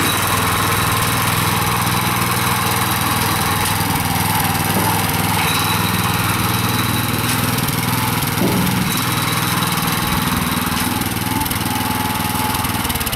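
Petrol engine of an MB-2 walk-behind tractor running steadily under load as it pulls a potato planter along a furrow.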